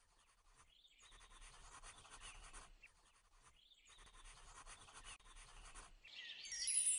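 Pencil scratching on paper in two long stretches of writing, with a short break between them. Near the end, a louder burst of bright chirping starts.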